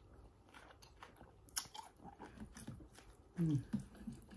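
Close-miked eating sounds of a person chewing and biting a mouthful of shrimp from a bowl of pho: soft, irregular wet clicks and smacks, with a short hum of the voice about three and a half seconds in.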